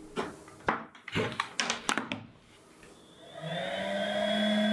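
A quick string of light clicks and taps. About three and a half seconds in, a steady electric hum starts, sliding up a little in pitch before it holds steady.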